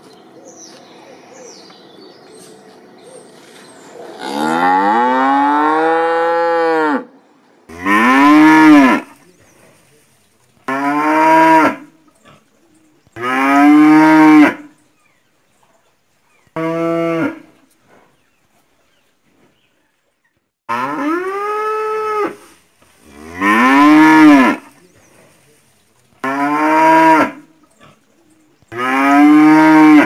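Cattle mooing loudly, nine drawn-out moos, each rising and then falling in pitch, coming every two to three seconds. The calls start about four seconds in, and the first is the longest.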